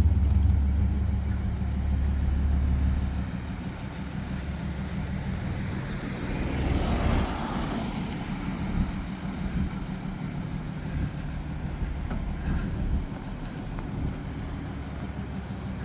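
Fire truck's diesel engine idling with a steady low rumble, strongest for the first three seconds, over street traffic that swells about seven seconds in.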